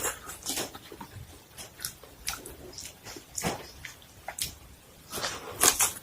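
Close-miked eating sounds: chewing and mouth smacks coming irregularly, roughly one every half-second to second.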